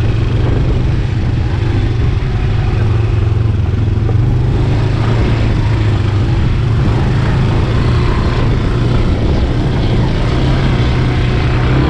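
ATV engine running at a steady pace, a constant low drone.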